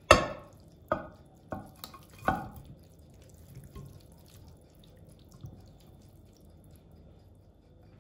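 Five sharp, ringing taps in the first two and a half seconds, the first the loudest, then only faint small sounds.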